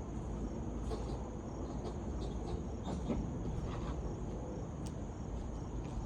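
Insects chirping in an even, steady high pulsing trill over a low outdoor rumble, with scattered light clicks and scrapes.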